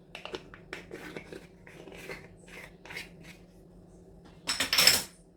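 Kitchen handling sounds while seasoning a mixture: light taps and clicks of utensils and containers, then a brief loud scraping rustle about four and a half seconds in.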